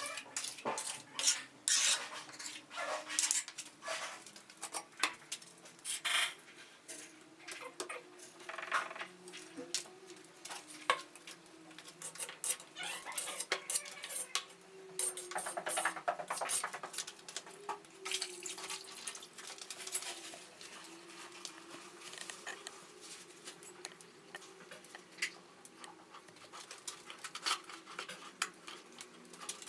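Metal plastering tools scraping and clinking in an irregular run of short strokes, the sound of plaster being worked with a trowel.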